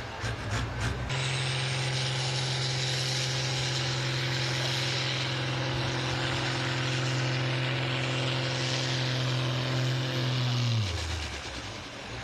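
Diesel engine of a farm pulling tractor held at full throttle while it drags the weight sled, a loud steady drone at constant pitch with a hiss above it. About ten seconds in, the revs fall away.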